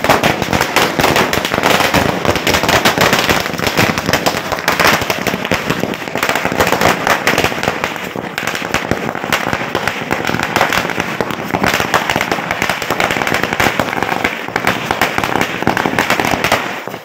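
Dense, continuous crackling and popping that starts and cuts off abruptly.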